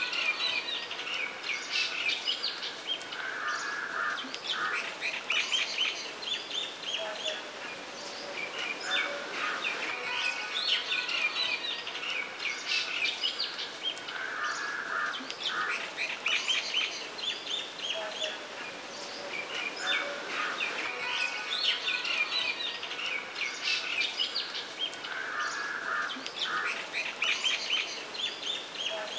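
A chorus of small birds chirping and twittering in quick, high calls, with no let-up. The same stretch of birdsong comes round again about every eleven seconds, as a looped recording does.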